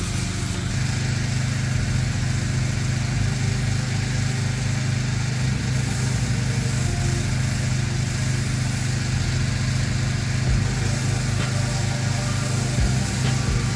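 Petrol-engine pressure washer running steadily at a constant speed, with an even hiss of water spray over it.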